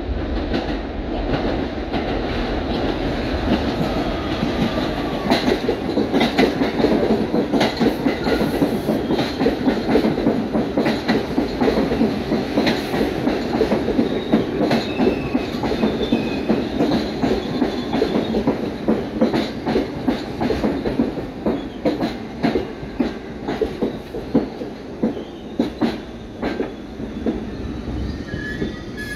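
New York City Subway 1 train (R62A cars) running into the station close by, a steady rumble with wheels clacking over rail joints, loudest as the cars pass. Faint brief wheel squeals come about halfway and again at the end as it slows to stop.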